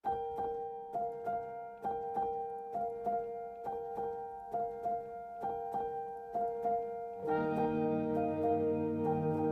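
Background music: a gentle piano piece with a steady repeating pattern of notes, and fuller, lower sustained chords coming in about seven seconds in.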